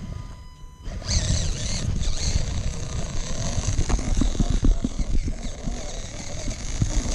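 Radio-controlled rock crawler driving over gravel and dirt, recorded by a camera on board: the electric motor and gearbox whine, rising and falling with the throttle, over the crunch and knock of tyres and chassis on loose stones. The driving sound starts about a second in.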